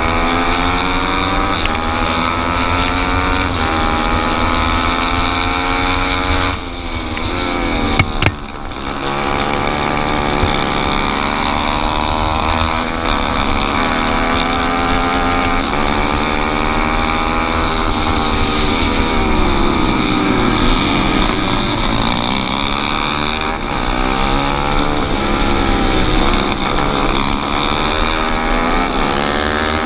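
Four-stroke racing kart engine heard up close from onboard, running hard with its revs climbing along the straights and falling back into the corners. About seven seconds in the engine note drops briefly off throttle, with a couple of sharp knocks around eight seconds.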